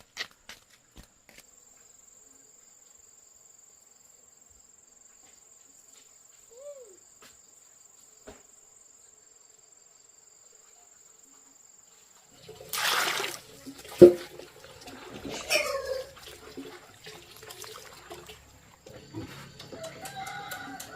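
Chickens clucking and calling on a farm. About two-thirds of the way through there is a loud rustling rush and a sharp knock, followed by a squawk with falling pitch and more clucking near the end.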